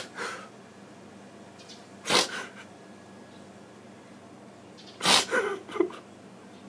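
A man's sharp, noisy breaths between prayers: one near the start, one about two seconds in and one about five seconds in, the last followed by a few short catches of voice.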